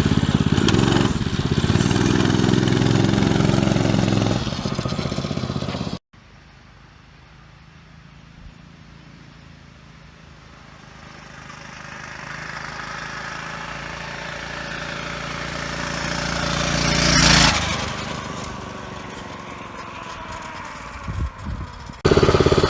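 Predator small engine in a minibike frame, running loud and steady close by. After a sudden cut, the engine is heard farther off, growing louder to a peak about seventeen seconds in and then fading, before it is loud and close again near the end.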